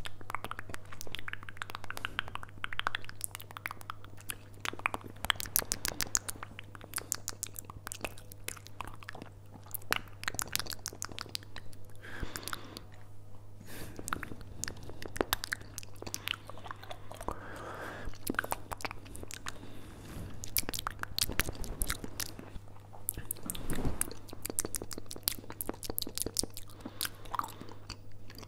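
ASMR mouth sounds made right against a furry-windscreened microphone: lips and tongue making rapid clicks and pops in dense runs, with brief pauses.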